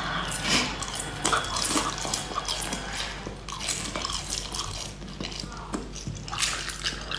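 Wet sucking and slurping as small marinated snails are pulled off a skewer with the mouth: a quick, uneven run of moist clicks and smacks.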